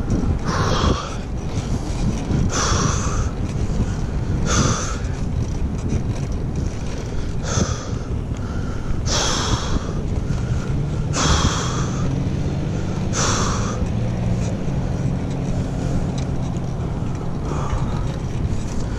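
Steady wind noise on the microphone of a moving bicycle, with the rider's heavy breaths about every two seconds. A motor vehicle's low engine hum comes and goes from about eleven to sixteen seconds in.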